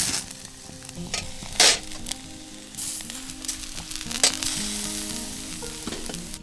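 Fat and juices from a leg of lamb sizzling on hot charcoal, with sharp pops and crackles, the loudest about one and a half seconds in and again about four seconds in. The sizzle swells about three seconds in and stays up until near the end.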